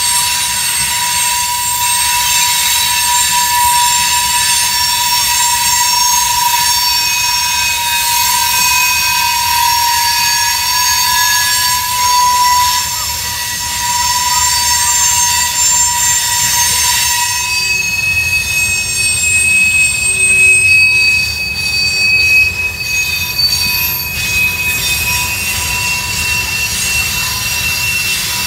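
Freight train cars rolling past on steel rails, the wheels squealing in steady high tones over the rumble of the wheels. About 17 seconds in the squeal changes to a higher pitch.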